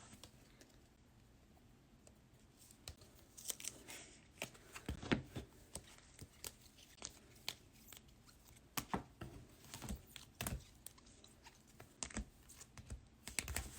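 Faint, scattered rustles and clicks of trading cards being handled, with plastic crinkling, starting about three seconds in after a near-silent stretch.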